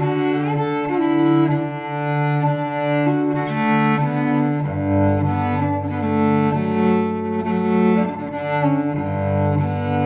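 Solo cello bowed, playing sustained notes in an instrumental passage, with a low held note coming in about five seconds in.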